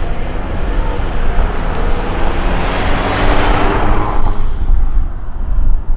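Boeing 767 freighter's jet engines on the landing rollout, a roar with a steady whine that swells to a peak about three seconds in and then drops away, over a constant low rumble. A bird chirps faintly near the end.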